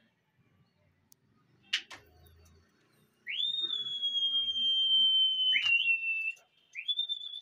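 A person whistling loud and high, the kind of whistle pigeon flyers use to signal their flock. One long held note starts about three seconds in, slides into a slightly lower note, and a short whistle follows near the end. A sharp click comes about two seconds in.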